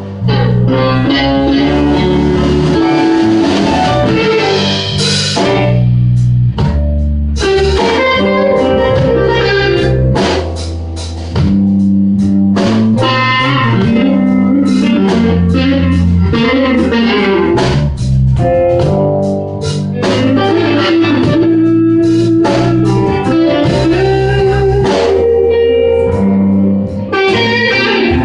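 Live blues band playing an instrumental passage: electric guitar leads over bass, with drums coming in about six seconds in.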